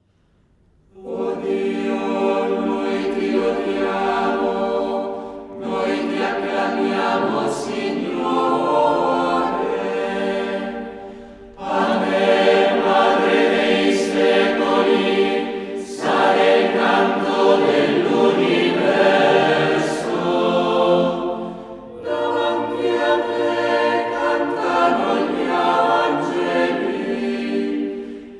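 Choir singing in long held phrases, with brief pauses between the phrases.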